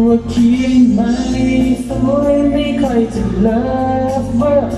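A man singing a Thai song live into a microphone over instrumental accompaniment, holding long notes that bend and glide in pitch.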